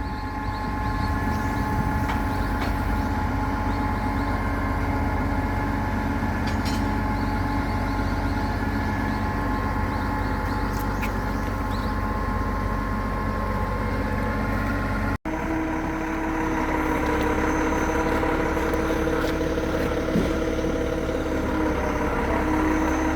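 Concrete pump truck's diesel engine and pump running steadily, a loud continuous mechanical drone with a low hum and several steady tones. About two-thirds of the way through it breaks off for an instant and goes on with a different set of tones.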